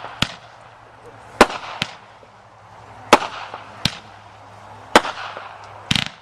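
Helter Skelter firework going off: a string of about seven sharp bangs spaced a second or so apart, some trailing a short crackle, with a quick cluster of reports near the end.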